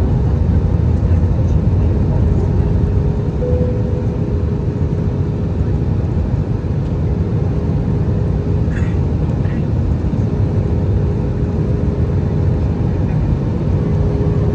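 Steady, deep engine and airflow noise inside an Airbus A320-200's passenger cabin, with a thin steady hum running through it and a slight dip in loudness a few seconds in.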